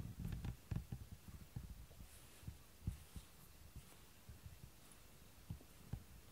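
Domestic cat purring close to the microphone while being stroked: a low throbbing rumble, densest in the first second, then thinning to a few soft low thumps.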